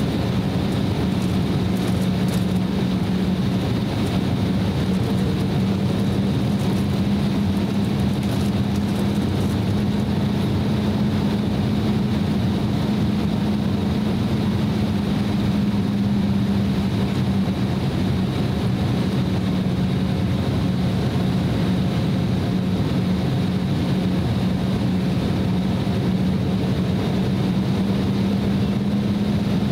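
Cabin noise of an Embraer E190 airliner taxiing: the twin turbofan engines and cabin air run at low taxi power as a steady, even rumble with a constant low hum.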